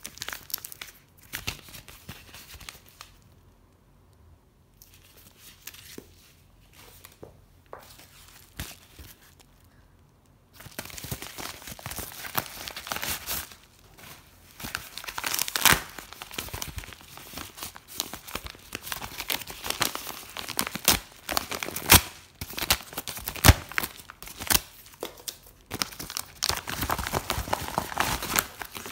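Kraft paper mailer being handled and torn open: paper crinkling and ripping. It is fairly quiet with only a few light rustles for the first ten seconds or so, then busy crinkling with several sharp rips.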